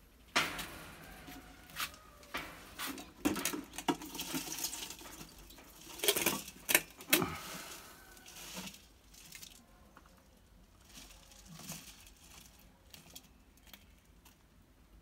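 Scrapes, knocks and rattles from a lidded steel pot with a glass lid, with quick scrabbling, busiest and loudest in the first half and trailing off to a few faint clicks.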